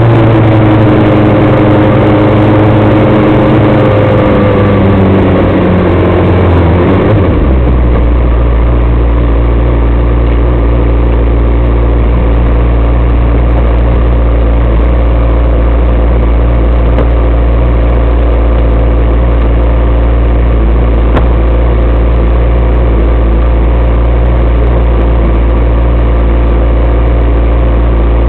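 Single-seat off-road racing buggy's engine running at low speed, its pitch wavering and then dropping. About seven seconds in it settles to a steady idle as the buggy stands still.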